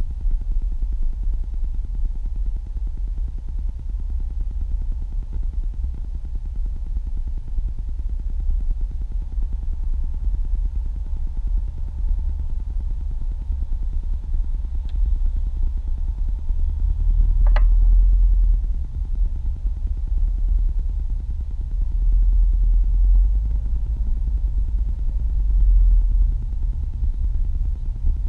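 Low, steady rumble of a moving car heard from inside its cabin, from the engine and road noise. A single sharp click comes a little past halfway.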